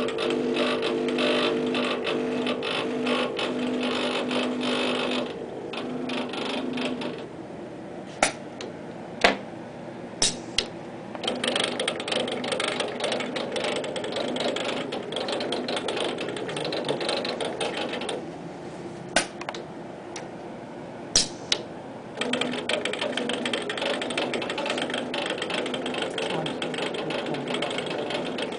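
Motors and gears of a student-built pick-and-place robot arm running with a rattling, ratchet-like buzz as the arm moves, with a steady whine over the first few seconds. Twice the running drops away for a few seconds, when a few sharp clicks sound, before the motors start up again.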